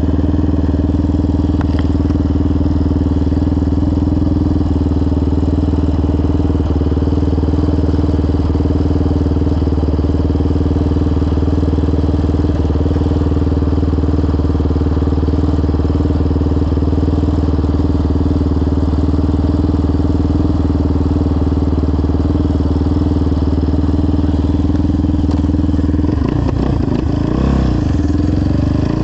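Yamaha Raptor 700R's single-cylinder four-stroke engine, fitted with a full CT Racing aftermarket exhaust, idling steadily, then revving up near the end as the quad pulls away.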